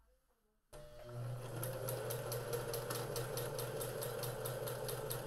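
Electric sewing machine starting up just under a second in and then stitching steadily: a motor hum with a fast, even needle tick of about six stitches a second, sewing a straight seam through two layers of cotton fabric.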